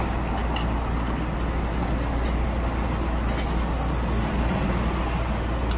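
Steady rushing noise with a low hum from the table barbecue grill as beef ribs sizzle on the grate, with a few faint metal clicks of tongs and scissors.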